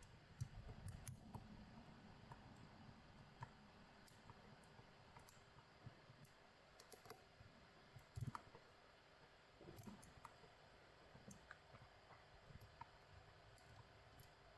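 Faint, scattered clicks and scrapes of a lock pick and tension wrench working inside a Tostem WN pin-and-slider lock, jiggling to set its reverse sidebar, with a few low handling bumps near the start and about eight seconds in.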